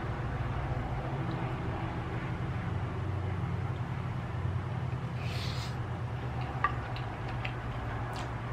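Close-miked eating of shrimp and rice: faint wet chewing and mouth clicks, with a short hissy squish about five seconds in. A steady low hum underlies it throughout.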